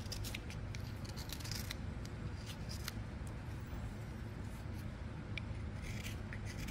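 Knife blade shaving a thin wooden stick to a point in short scraping cuts, taking off ridges as the stick is turned. The cuts come in a quick cluster over the first couple of seconds, then singly, over a low background hum.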